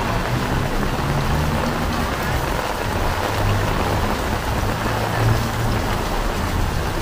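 Rain falling steadily on the street and surfaces, a dense even hiss, with an uneven low rumble underneath.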